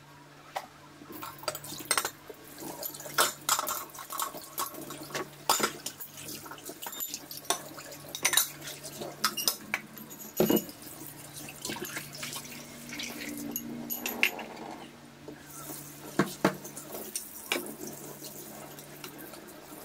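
Dishwashing at a stainless steel sink: tap water running and splashing, with frequent sharp clinks and knocks of plates, cutlery and a pan against each other and the steel basin. A faint steady low hum runs underneath.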